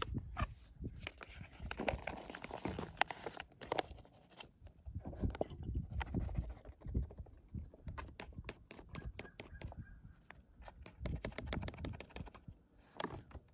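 Foil-lined freeze-dried meal pouch crinkling and rustling as it is shaken and squeezed, with soft irregular pats of rehydrated food sliding out into a bowl.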